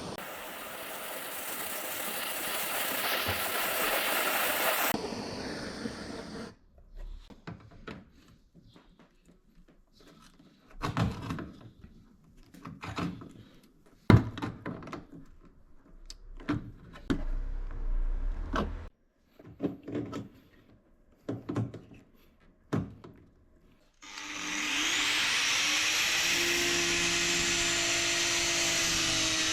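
Heat gun blowing on a sheet-metal repair piece to heat it for bending. It cuts off after about five seconds, and the metal is then worked by hand with scattered knocks and clunks, one loud clank near the middle. The heat gun is switched back on near the end, its pitch rising as it spins up, then running steadily.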